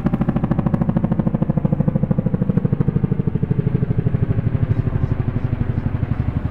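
Boeing CH-47 Chinook tandem-rotor helicopter flying overhead: its rotors beat rapidly and evenly, with a pitched engine whine that falls slightly in pitch during the first few seconds.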